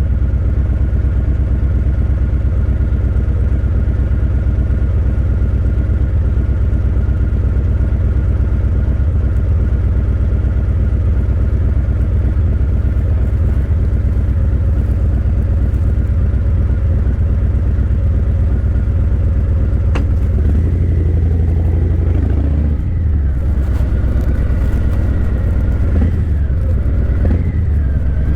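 Harley-Davidson Breakout 117's Milwaukee-Eight 117 V-twin running through Vance & Hines Eliminator 300 slip-on mufflers. It holds a steady note for about twenty seconds, then rises and falls in pitch as the throttle is worked.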